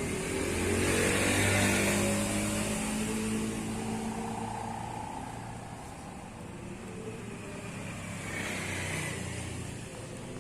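A motor vehicle passes by, loudest about a second or two in and fading away, with a second, quieter vehicle passing near the end.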